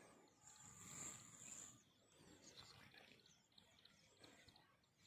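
Near silence: faint outdoor ambience, with a thin high hiss for about a second and a half near the start and a few faint high chirps after it.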